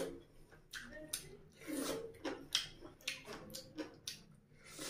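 Close mouth noises of a person eating fish by hand: a string of short, wet sucking and smacking sounds as he pulls the flesh off the bones.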